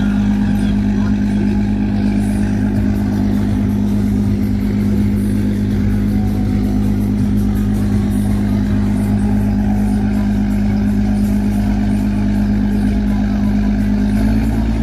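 Passenger riverboat's diesel engine running steadily under way, a loud, even low drone heard at close range, with water churning in the propeller wash.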